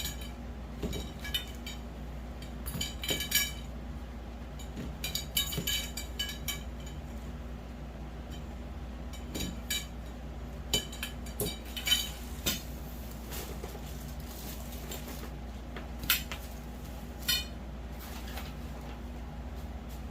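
Metal grow-tent frame poles clinking and clicking as they are handled and pushed into their corner connectors, in irregular clusters with a few sharper clanks later on, over a steady low hum.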